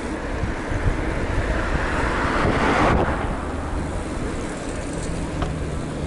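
Wind rushing over the microphone of a camera on a moving bicycle, with steady low road rumble. A louder swell of rushing noise builds about halfway through and cuts off abruptly.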